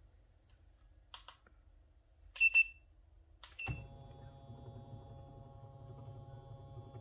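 A few light clicks about a second in, then three short high-pitched tones: two close together around two and a half seconds in, and one about a second later.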